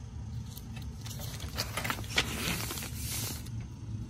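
Paper instruction sheet rustling as it is picked up and unfolded, with a few light clicks before the rustle, which runs from about two seconds in to shortly before the end.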